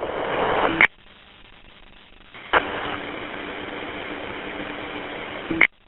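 Two-way radio static: hiss ending with a squelch burst about a second in, then a quiet gap. A second transmission follows, keyed open for about three seconds with only hiss and a steady low hum and no voice, and it cuts off with another squelch burst.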